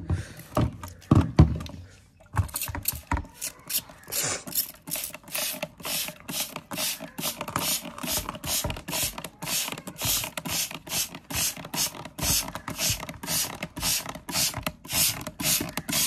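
A hand-held trigger spray bottle squeezed over and over, each pull of the trigger giving a short hiss of water mist, about two to three squirts a second, starting about two seconds in.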